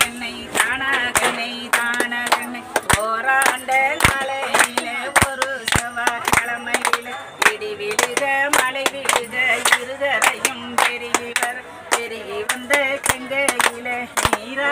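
A group of women singing a song together while clapping their hands along with it.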